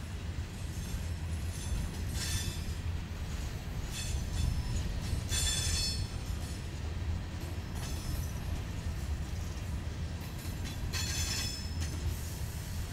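Empty steel rock hopper cars of a freight train rolling past with a steady low rumble. High-pitched metallic squeals from the running gear come in briefly three times: about 2 seconds in, around 5 to 6 seconds, and near 11 seconds.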